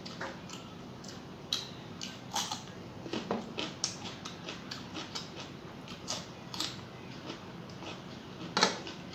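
Close-miked eating sounds of rice and fish curry eaten by hand: irregular soft mouth clicks, smacks and chewing, with fingers mixing rice on the plate. One sharper smack stands out near the end.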